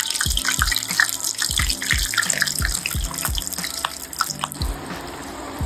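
Wonton-wrapped salmon rolls deep-frying in hot oil, sizzling with many sharp crackles and pops, over background music with a steady beat. The crackling dies away about four and a half seconds in.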